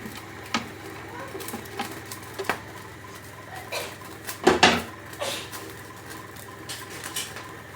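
A spoon clinking and scraping against a frying pan as chopped onions are tipped into the oil and stirred, with scattered light knocks and a louder clatter of a few knocks about four and a half seconds in, over a faint steady hiss.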